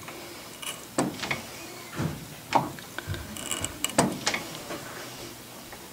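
Clausing lathe carriage being stroked back and forth to slot a keyway, thunking against the carriage stop about once a second as the tool shaves the zinc handwheel's bore on each pass.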